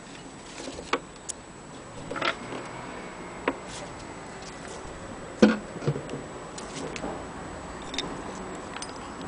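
Knocks and clicks of the wooden carrying-case cover being handled and lifted off an antique hand-crank Singer 12K sewing machine, a few at uneven intervals, the loudest about five and a half seconds in.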